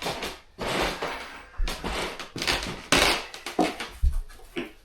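Wooden floor panels being handled and shifted: scraping rustles and a few dull knocks.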